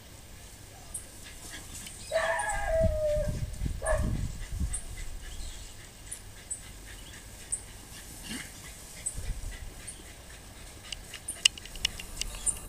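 An animal's cry about two seconds in, falling in pitch, then a shorter call near four seconds and a faint one around eight seconds. Faint high ticks repeat about once a second, with a few sharp clicks near the end.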